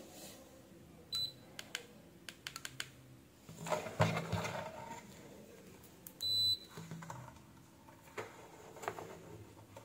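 KM601 digital multimeter being set up for a continuity test: a short high beep about a second in and a longer beep a little after six seconds. Between them come clicks of its buttons and rustling of the meter and test leads being handled.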